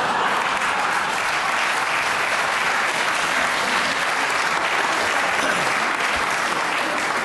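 Audience applauding steadily, a dense even clatter of many hands, cutting off near the end.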